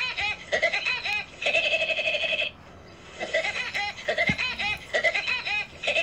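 Woody Woodpecker's high-pitched cartoon laugh: a quick run of staccato notes ending in a held trill. It plays twice, the second time starting about three seconds in.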